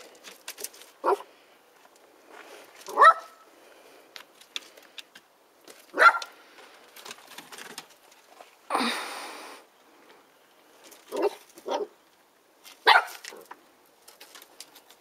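A two-month-old Border collie puppy barking, six short barks a few seconds apart. Roughly two thirds of the way through there is a brief noisy rush of about a second.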